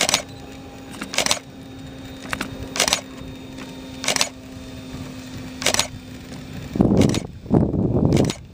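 A faint, steady hum from the model Blériot's engine, flying high overhead. Five short scratchy camera noises come about a second or so apart. For the last two seconds, a loud low rumble of wind buffeting the microphone covers everything else.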